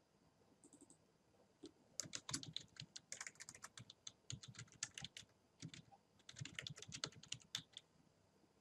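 Typing on a computer keyboard: a quick run of keystrokes starting about two seconds in, with a short pause partway through, stopping shortly before the end.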